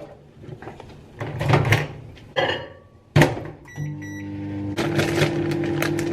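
A few kitchen knocks and clatters, then a short electronic beep as a microwave oven is started. It settles into a steady hum that gets louder about a second later.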